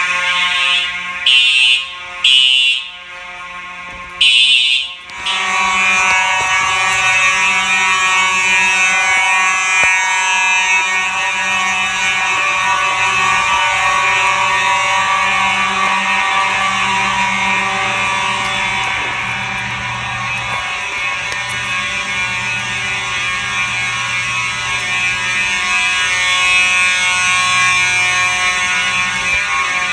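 Simplex fire alarm horns sounding during a system test: a few short, loud blasts in the first five seconds, then from about five seconds in, many horns sound steadily together in a dense, buzzy chord.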